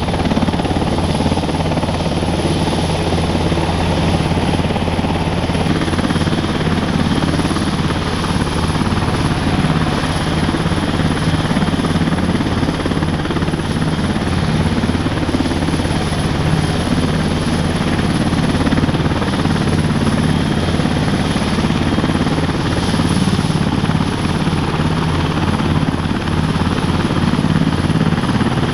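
NH90 helicopter running on the ground at idle, its twin Rolls-Royce Turbomeca RTM322 turboshaft engines and main rotor turning. It is a loud, steady drone with a fast low flutter and a thin high whine above it.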